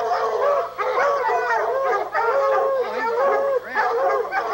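Several hunting hounds baying together: many short, arched, overlapping bawls at different pitches, with no break.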